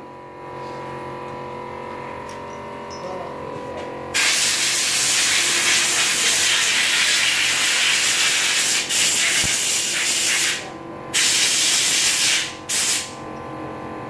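Compressed-air blow gun hissing as an engine bearing shell is blown clean before fitting: one long blast of about six seconds, then a shorter blast and a brief puff.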